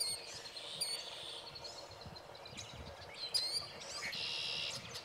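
Wild birds calling at a wetland: sharp, high falling calls at the start, about a second in and again after three seconds, a quick run of ticking notes in between, and a buzzy note near the end, over a steady low background rumble.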